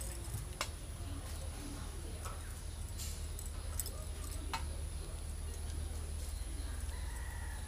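Small shrimp being peeled by hand and dropped into a steel bowl, giving a few sharp clicks. Under them run a steady low rumble and a thin steady high whine.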